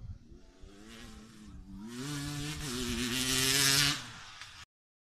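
Enduro dirt bike's engine running hard as it approaches, growing steadily louder, with one brief step down in pitch about halfway through. It drops away sharply about four seconds in, and the sound cuts out just after.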